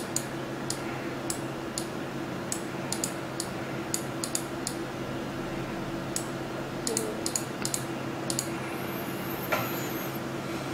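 Scattered sharp clicks of a computer mouse and keyboard being worked, over a steady low hum, with a faint high whine near the end.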